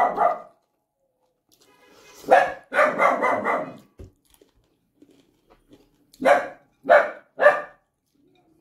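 Dog barking: a cluster of barks about two seconds in, then three short barks in quick succession later on.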